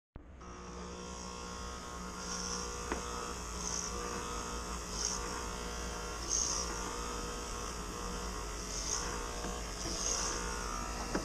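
Electric hair clippers running with a steady buzz while cutting hair, with short brighter swishes about every one to two seconds.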